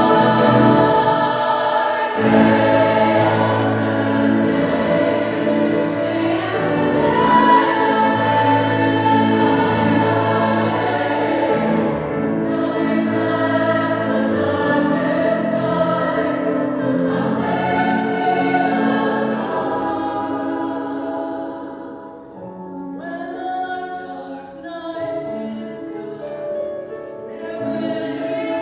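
Mixed chorus of men's and women's voices singing together in sustained lines. The sound thins and drops back briefly about two-thirds of the way through, then the voices build again.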